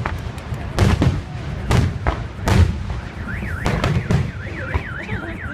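Fireworks display: aerial shells bursting with sharp bangs about once a second. About three seconds in, a car alarm starts wailing up and down rapidly, about three cycles a second.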